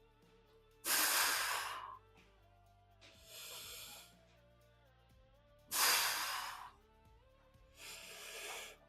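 Heavy breathing of a man straining through weightlifting reps: two loud breaths out about five seconds apart, each followed by a quieter breath, over faint background music.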